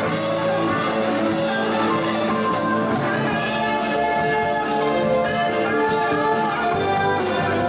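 A live instrumental band playing: electric guitar, electric bass, keyboard and drum kit.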